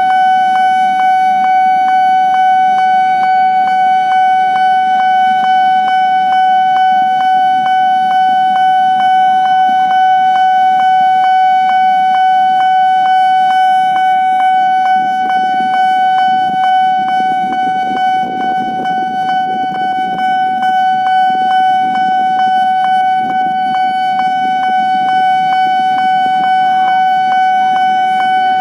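Railway level crossing warning alarm sounding continuously: a steady high tone with a regular rapid pulse. Underneath, a low rumble swells around the middle.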